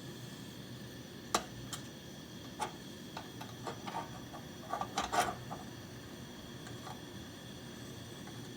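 Steady hiss of a camp stove burner heating an aluminum part, with a scattering of light metallic clicks and taps about a second to five seconds in, loudest near the middle.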